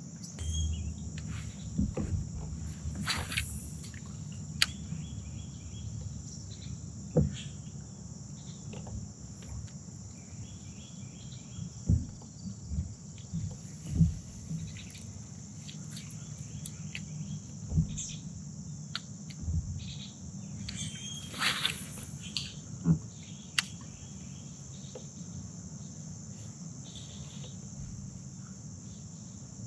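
Steady high-pitched chorus of insects, with scattered light clicks and knocks. There are two brief louder rushes of noise, one about three seconds in and one about twenty-one seconds in.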